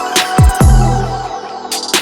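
Electronic music with a heavy bass that slides down in pitch, and sharp drum hits.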